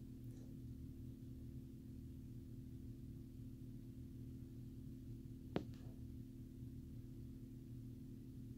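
A steady low hum made of a few held tones, with one sharp click about five and a half seconds in.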